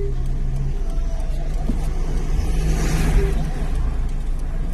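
Car engine idling with a steady low rumble inside the cabin, with a swell of passing noise around three seconds in.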